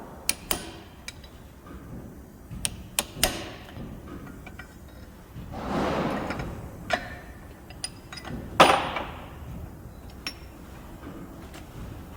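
Hammer striking a steel pin punch to drive the old nylon bushes out of a Holden door hinge held in a vise. Sharp metallic taps come at irregular spacing, some in quick pairs, with a longer swell of noise about halfway and the loudest hit a little after it. The bushes have split and are being forced out piecemeal.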